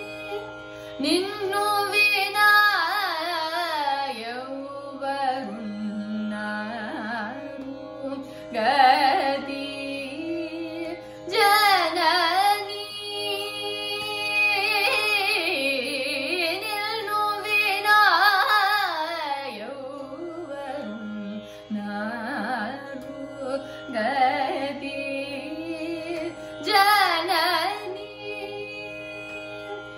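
Carnatic vocal music: a young woman singing phrases that glide and bend in pitch, with short breaks between them, over a steady drone.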